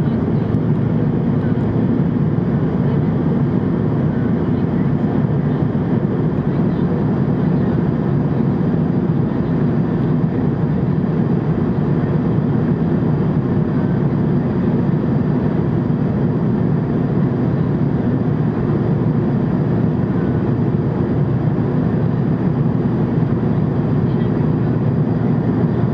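Steady cabin noise of a jet airliner in flight, heard from inside the cabin: engine and airflow noise blended into a constant low drone that does not change.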